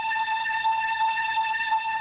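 A single high, sustained electronic tone with a slight waver, held at one pitch: a note of the programme's opening music.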